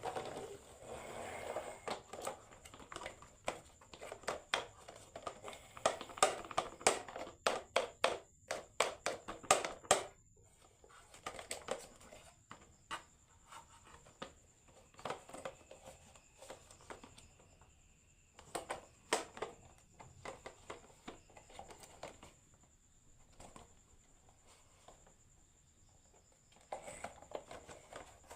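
Marbles rolling and clacking down a wooden HABA marble run: a dense run of clicks and knocks for the first ten seconds or so, then scattered clacks with quiet gaps, and a brief cluster again near the end.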